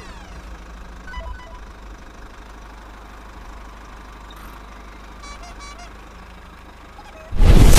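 A steady low engine-like rumble with a few short chiming tones over it, then a sudden loud burst of rushing noise near the end that keeps going.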